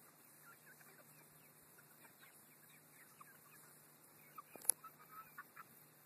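Young chickens making short, soft calls while foraging, scattered throughout. About three quarters of the way through there is a single sharp click, followed by a few louder calls.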